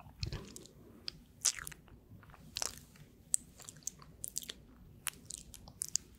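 Chewing gum close to a microphone: irregular wet clicks and smacks of the mouth, a few a second.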